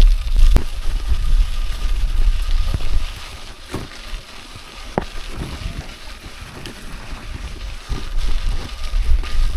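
Wind buffeting the microphone in gusts, a heavy low rumble that drops away about three seconds in and returns near the end, with a few sharp clicks in the quieter stretch.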